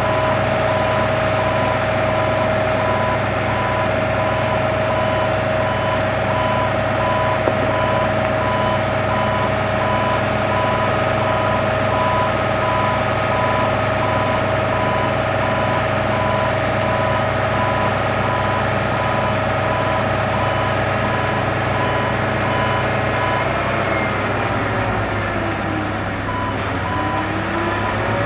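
Nagano Kogyo NUZ090D articulating-boom aerial work platform running while its boom raises the platform: a steady engine and hydraulic drone with a warning beeper sounding in evenly repeated beeps. Near the end the beeping stops for a couple of seconds and the drone's pitch falls and then rises again.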